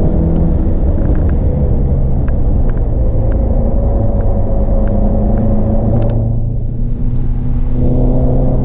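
Volkswagen Golf GTI Mk7's turbocharged 2.0-litre four-cylinder engine pulling under load on a track lap, heard inside the cabin along with a heavy rumble of tyre and road noise. About six seconds in the sound thins out briefly as the engine eases off, then picks up again near the end.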